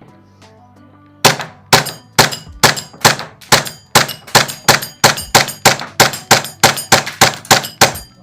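Glock 19 gas airsoft pistol fired in rapid semi-auto, about eighteen sharp shots at two to three a second, each with a short ring.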